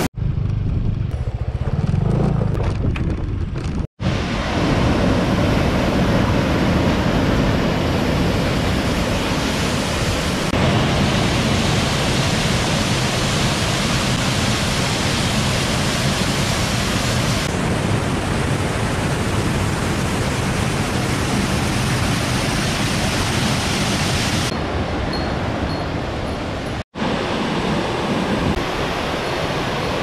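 Small rocky waterfall: white water pouring over boulders with a steady rush. The sound drops out for an instant twice, about 4 seconds in and near the end.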